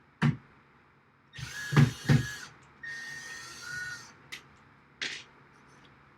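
A power drill run in two short bursts of about a second each, with a steady whine that drops in pitch near the end of the second burst. Sharp knocks and clicks of the tool and rail being handled come before and after.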